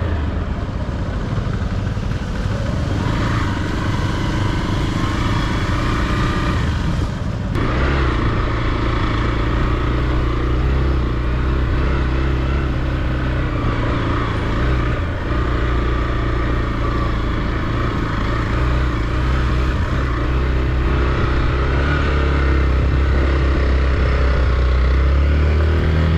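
Hero XPulse 200's single-cylinder engine running at low, fairly steady revs as the bike is ridden down a rough off-road track.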